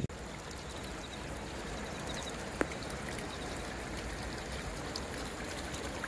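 Steady rushing of flowing stream water, with one short sharp click about two and a half seconds in.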